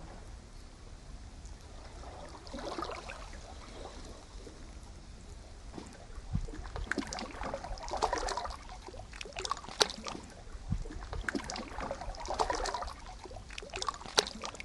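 Small waves lapping and splashing at the shoreline, washing in every few seconds with a crackle of breaking water.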